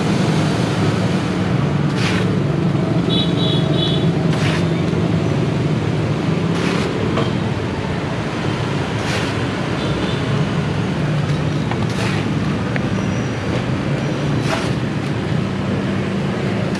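Steady street traffic din with engine hum, and a cleaver knocking on a wooden chopping board six times, a little over two seconds apart.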